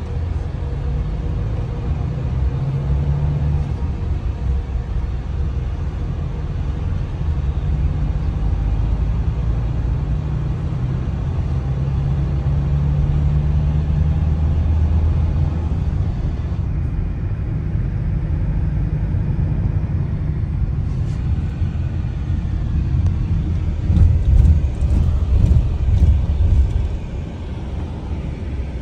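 Car driving, heard from inside the cabin: a steady low rumble of engine and tyres, with the engine hum drifting up and down in pitch. It grows louder, with a few knocks, for a couple of seconds near the end.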